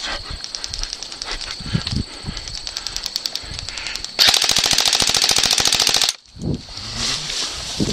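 Airsoft guns firing on full auto: rapid trains of clicking shots for the first few seconds, then a much louder continuous burst about four seconds in that lasts about two seconds and cuts off suddenly.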